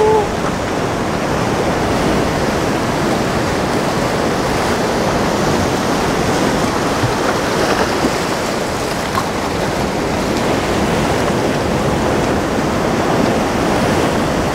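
Rough sea surf surging and breaking against a rocky shore, a loud, steady wash of waves that swells slightly now and then.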